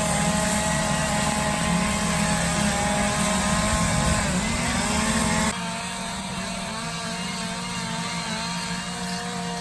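Chainsaw engine running steadily; its pitch dips and recovers about four seconds in. A little past halfway the sound drops suddenly to a quieter saw, still running steadily.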